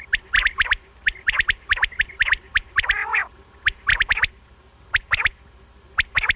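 Common quail (batair) calling: quick runs of sharp notes that flick up in pitch, in groups of two to four, with one harsher, lower call about three seconds in. It is a recorded quail call of the kind played to lure quail for hunting.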